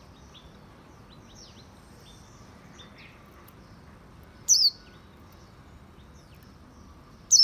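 A bird gives a loud, short, high call that falls in pitch, twice, about three seconds apart: once about halfway through and again at the end. Fainter chirps sound in between.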